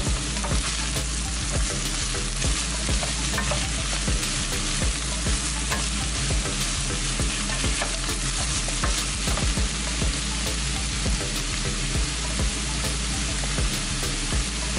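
Diced carrots and onions sizzling in hot oil in a stainless steel pot, stirred with a wooden spoon, with scattered light knocks and scrapes against the pot.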